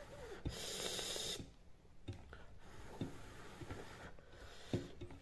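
A man eating with his hands: a short hiss of breath through the mouth about half a second in, then faint mouth clicks while chewing.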